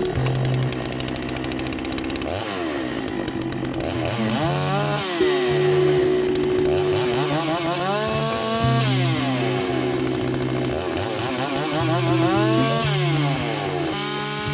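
Gas chainsaw bucking a fallen tree into sections, its engine revving up and dropping back several times as it cuts, under steady background music.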